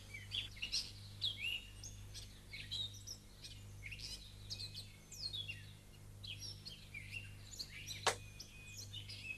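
Small birds chirping, with many short rising and falling calls one after another over a low steady hum. There is a single sharp click about eight seconds in.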